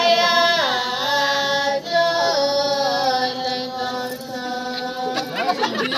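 Voices singing a slow, chant-like song in long held notes that slide down from one pitch to the next. Talking breaks in near the end.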